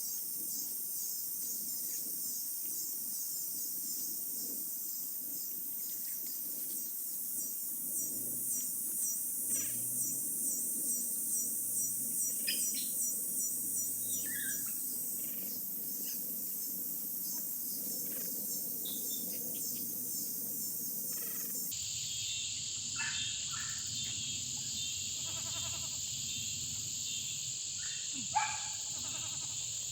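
Chorus of crickets and other insects, a steady high-pitched pulsing trill, with a few short chirps over it. The chorus changes abruptly about two-thirds of the way through.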